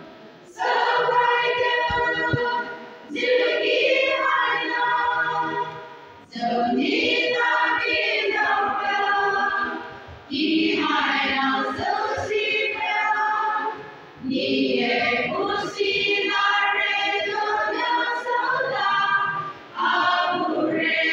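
Women's choir singing together, phrase by phrase, with a short break for breath every three to four seconds.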